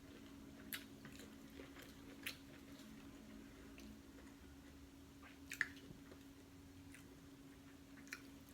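Faint wet chewing of seafood, with a few soft clicks from the mouth, the clearest a little past halfway, over a low steady hum.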